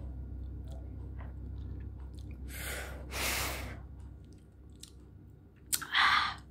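A person eating spicy instant ramen noodles: soft chewing with faint mouth clicks, broken by two loud breathy rushes of air about two and a half seconds in and another shortly before the end.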